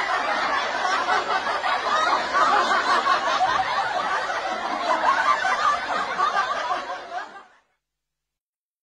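Continuous laughter that stops abruptly about seven and a half seconds in, leaving silence.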